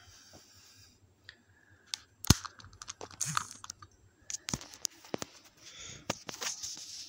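Handling noise: irregular clicks and knocks with bursts of rustling as the camera is picked up and moved about over the leather jacket. The sharpest knock comes about two seconds in.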